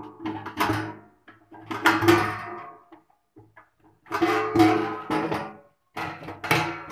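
Acoustic guitar strumming: a run of chords, each struck sharply and left to ring out, in an uneven rhythm.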